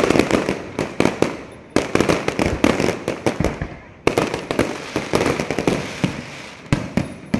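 Fireworks display: rapid volleys of bangs and crackling. Each volley starts suddenly and thins out, and a new one bursts in about every two to three seconds.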